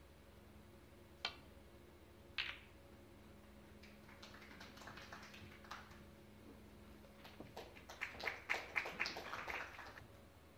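Two sharp clicks of snooker balls, a second apart: the cue striking the cue ball, then the cue ball hitting an object ball. Scattered audience clapping follows, swelling into a short burst of applause near the end that stops abruptly.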